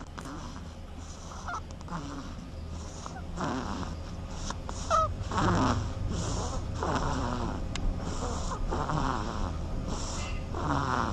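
A sleeping duck snoring: short raspy breaths about once a second, with a few brief squeaks, over a steady low hum.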